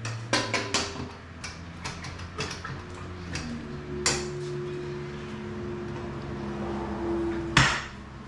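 Metal clanks and rattles of a steel rear paddock stand being wheeled and fitted under a motorcycle's rear end, ending in one loud clunk near the end as the bike is levered up onto the stand. A steady low hum runs underneath.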